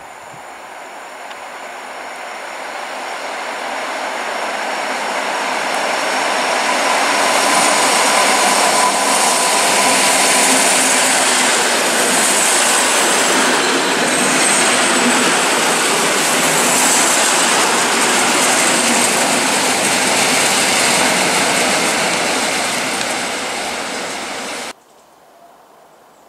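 Koleje Śląskie EN57KM electric multiple unit running past along the platform: a rush of wheels on rail with rail clatter that builds as it approaches and stays loud for many seconds, then cuts off suddenly near the end.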